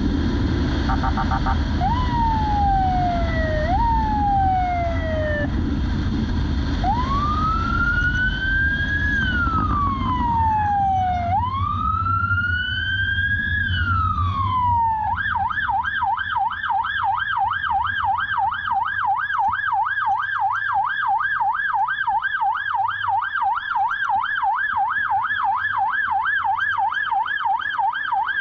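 Police motorcycle siren: a few short falling sweeps, then two long wails rising and falling, switching about halfway through to a fast yelp that warbles several times a second. Engine and wind noise underneath drop away when the yelp begins.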